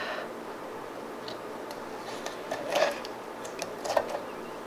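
Sticky slime putty stretched into a thin bubble being handled, giving a series of small clicks and crackles. The two loudest come about three and four seconds in.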